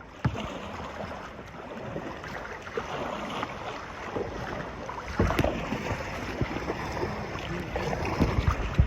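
Water splashing and lapping around a plastic kayak as it is paddled, with gusts of wind buffeting the microphone.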